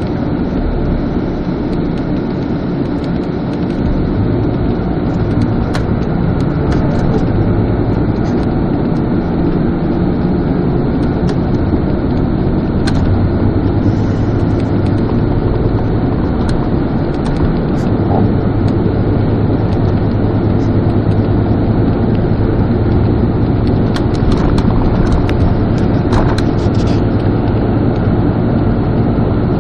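Steady engine and road noise of a moving road vehicle, heard from inside it, with a low hum throughout and a few faint clicks.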